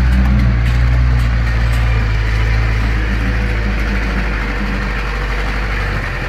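Jeep engine running steadily at low revs, easing off a little partway through.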